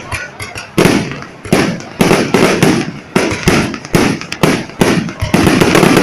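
Fireworks display, shells bursting in quick succession: a loud bang about every three-quarters of a second, each trailing off before the next.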